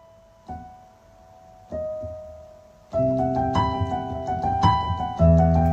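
Piano music: a few single notes ring out and fade, then fuller chords with a bass line come in about three seconds in and the music grows louder.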